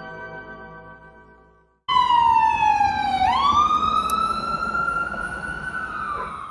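A held musical note fades out. About two seconds in, an emergency vehicle's siren starts abruptly and loud: its pitch slides down, then sweeps back up and holds high in a wail, the kind of siren used when running Code 3 with lights and siren.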